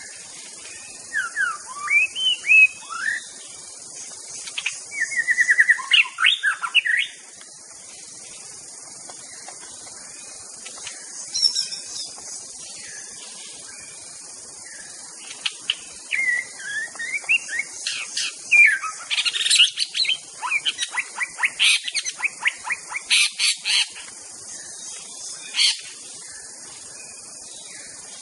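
White-rumped shama singing in phrases of quick gliding whistles and fast trills, with a pause of several seconds in the middle before a longer run of song. A steady high hiss of insects runs underneath.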